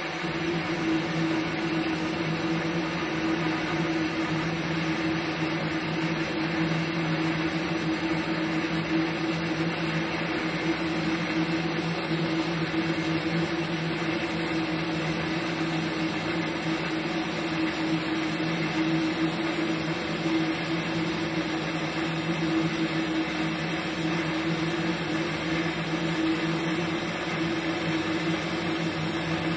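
Pulsed TIG welding arc from a MultiPro TIG 315 AC/DC inverter welder, burning steadily with an even low hum.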